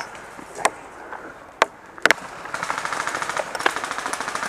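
Airsoft guns firing: a few single shots in the first two seconds, then a sustained burst of rapid full-auto fire from about two and a half seconds in.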